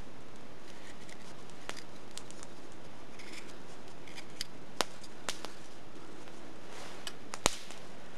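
Spoon knife (hook knife) carving the bowl of an alder-wood spoon: short scraping cuts with light clicks from the blade. One sharp knock, the loudest sound, comes near the end.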